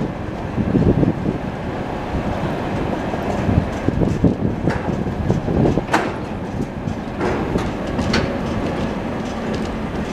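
Freight train of tank cars rolling past, wheels rumbling and knocking on the rails. A few short, sharp metallic squeaks stand out, the loudest about six seconds in.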